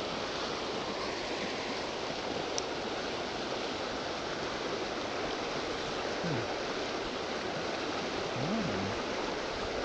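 Steady rush of a river's strong current flowing past.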